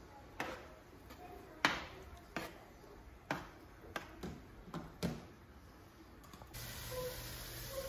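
Metal spoon stirring a tomato mixture in a stainless steel frying pan, knocking against the pan in several separate sharp taps. A steady hiss comes in near the end.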